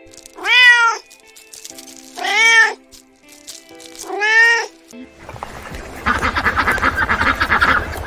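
Domestic cat meowing three times, each meow rising then falling in pitch. From about five seconds in, a dense, rapid clucking of chickens takes over.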